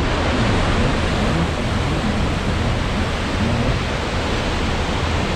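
Steady, loud rushing noise, even and unbroken, with no clear pitch or rhythm.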